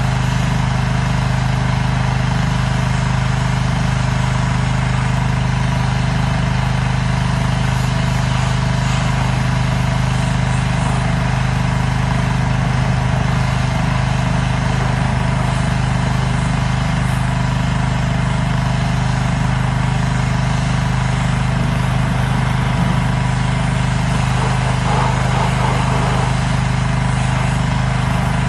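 Pressure washer motor running steadily at constant speed, a loud even hum, with the hiss of the spray over it.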